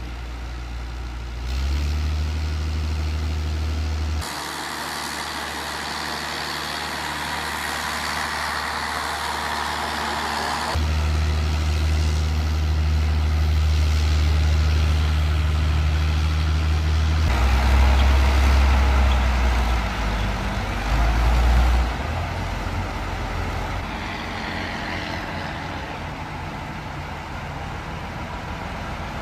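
Heavy off-road truck engines running under load, with the sound changing abruptly several times between spliced clips.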